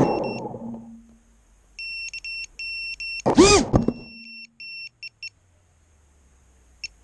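A crashed FPV racing drone's beeper sounding in short, repeated two-tone beeps. About 3.5 s in, its motors spin up in a brief loud burst that rises and falls in pitch, then wind down, as the drone is set back on the ground. A faint high whine runs underneath.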